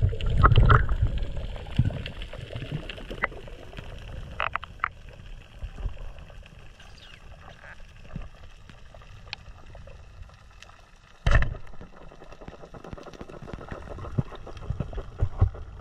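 Underwater sound heard through a camera housing: a low water rumble with scattered clicks, loudest in the first second, then about eleven seconds in a single short, loud thump as the Pathos Laser roller speargun fires.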